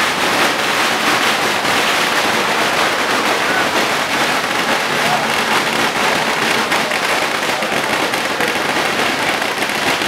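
A long string of firecrackers crackling continuously in a dense, even rattle, with a crowd shouting underneath.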